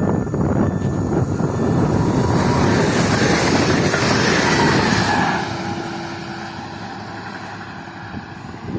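Newag Impuls 31WE electric multiple unit arriving, wheels rumbling on the rails with higher whining tones over it. The rumble drops off about five seconds in, leaving a quieter steady hum with a low steady tone.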